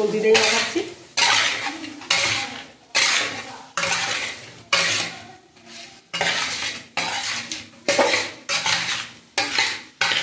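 Metal spatula scraping and knocking against a wide metal bowl while tossing raw fish pieces in turmeric and spices, in repeated strokes roughly one a second.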